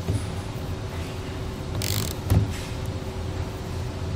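Click-type torque wrench tightening a ladder-rack clamp bolt: a short ratcheting rasp just under two seconds in, then a single sharp click as the wrench reaches its set torque.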